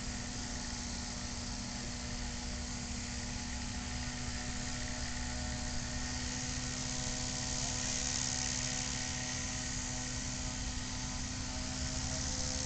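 Motor and propeller of a radio-controlled powered hang glider running steadily through its takeoff run, a distant buzz whose pitch edges up slightly. The onlookers think it is not at full throttle.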